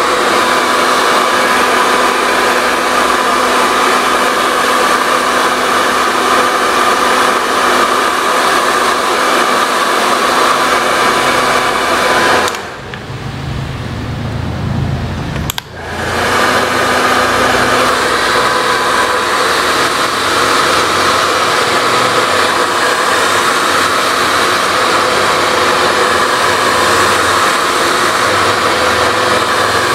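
Handheld hair dryer blowing steadily close by: a rush of air over a constant motor whine. It drops away for about three seconds near the middle, then comes back on.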